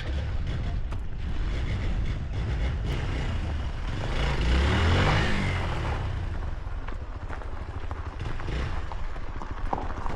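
A motor vehicle drives past close by about four to six seconds in, its engine note falling in pitch as it goes by, over a steady low rumble.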